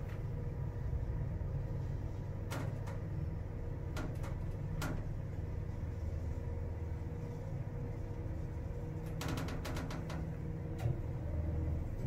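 Toshiba traction elevator cab travelling upward, heard from inside the car: a steady low rumble with a faint steady hum over it. Scattered light clicks and ticks are heard, with a quick cluster of them about nine seconds in.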